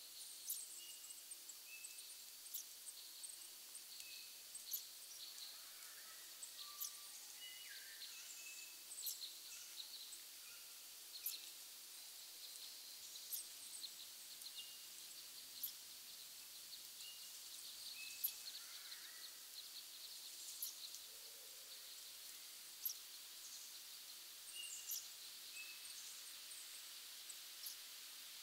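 Faint forest ambience: small birds giving many short high chirps and brief whistles, scattered irregularly, over a steady thin high-pitched drone and a light background hiss.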